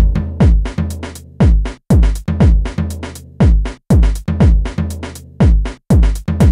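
Electronic background music with a drum-machine beat: a kick drum that drops in pitch about twice a second, short crisp hits in between, over steady bass notes.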